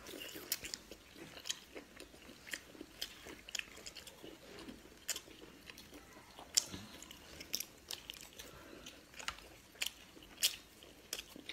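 Close-up chewing and crunching of an oil-fried chili pepper: irregular crisp crunches, roughly one or two a second, with wet mouth sounds between them.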